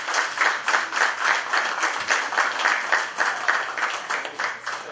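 Audience applauding: a small room of dinner guests clapping their hands steadily and fast.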